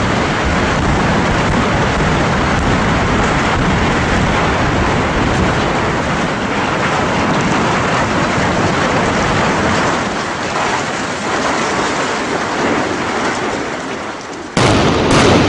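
A power-plant building collapsing after explosive demolition: a continuous crashing roar of falling structure and debris that eases off after about ten seconds. Near the end it switches abruptly to louder noise with several sharp cracks.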